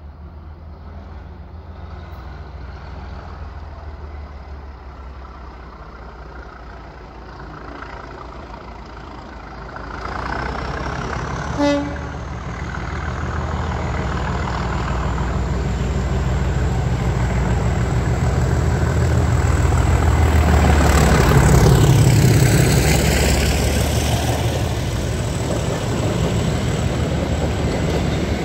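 Class 37 diesel locomotive approaching and passing under power, its English Electric V12 diesel engine growing louder as it throttles up, with a high whistle that climbs in pitch. The horn gives a brief toot about twelve seconds in. The engine is loudest as the locomotive goes past, and the train's coaches then roll by.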